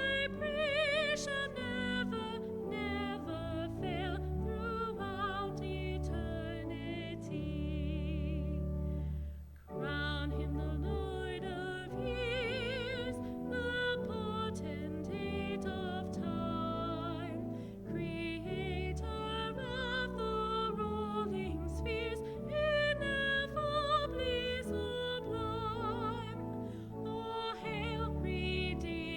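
Music: a solo melody with wide vibrato, in an operatic singing style, over sustained low accompanying notes, pausing briefly about nine and a half seconds in.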